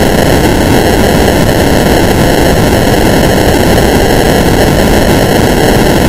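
Loud, harsh static-like noise, steady and even, from an audio editing effect laid over a logo.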